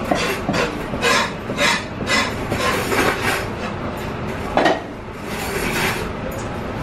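Kitchen clatter: a run of short rubbing strokes about two a second, then one heavier stroke about four and a half seconds in, over a steady background noise.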